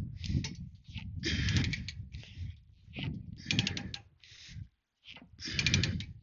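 Ratchet chain binder being cranked hard in repeated strokes, with a burst of metal pawl clicks about every two seconds as the chain is drawn near full tension. Wind rumbles on the microphone.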